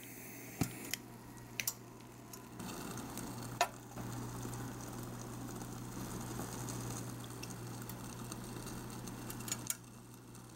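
Light clicks and taps as a miniature white saucepan is handled and set down on a toy-sized stove, a few scattered knocks, over a faint steady hum.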